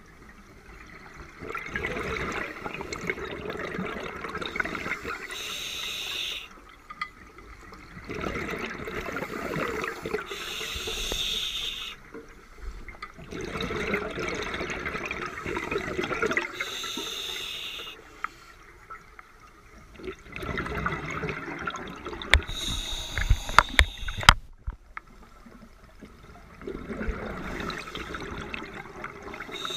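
Scuba regulator breathing underwater, a cycle about every six seconds: a short hiss of inhalation through the second stage, then a few seconds of bubbling exhaust as the diver breathes out. Sharp clicks are heard during the fourth breath.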